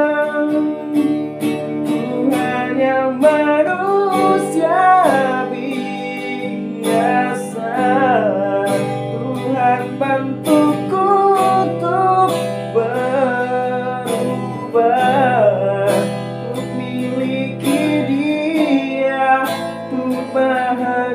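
Acoustic guitar strummed under a male voice singing a ballad in a high register, holding long notes with a wavering vibrato and sliding between pitches in vocal runs.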